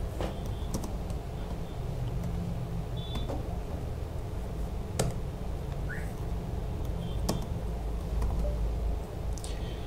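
Steady low room hum with a few scattered sharp clicks of computer keys being pressed.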